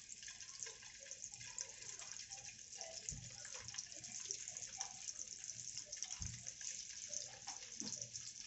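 Hot oil sizzling with a steady fine crackle in a non-stick frying pan as halved boiled eggs are laid into it, with two soft low thumps about 3 and 6 seconds in.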